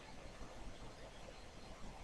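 Faint room tone with a steady low hiss; no distinct sound stands out.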